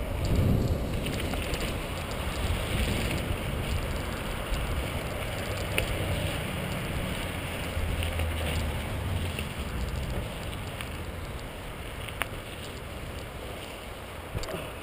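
Wind buffeting the microphone over a mountain bike's tyres rolling and crunching on packed dirt and gravel, with a low rumble from the bumps and a few sharp rattling clicks from the bike, one loud one about twelve seconds in.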